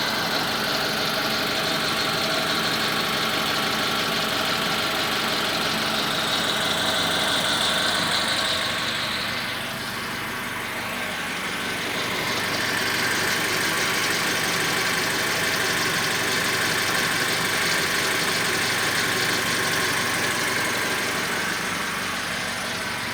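Toyota Calya's 1.2-litre four-cylinder petrol engine idling with a rough, clattering sound like a diesel engine, a roughness the owner notices at morning start-up.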